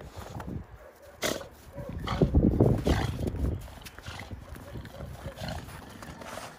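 A large bully-breed dog snorting and grunting in irregular bursts as it pushes its nose through snow, loudest a couple of seconds in.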